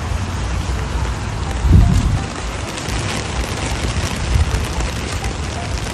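Steady rain falling, a fine crackling hiss over a low rumble on the microphone. There is a louder low thump a little under two seconds in.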